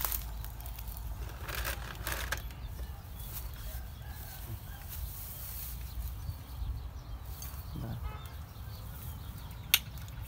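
Low, steady wind rumble on the microphone, with brief rustling about a second and a half in and a single sharp click near the end.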